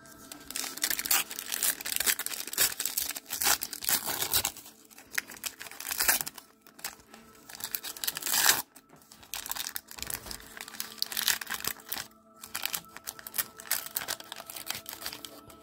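A trading-card pack wrapper crinkling and tearing as it is ripped open by hand, in irregular bursts with a few short pauses.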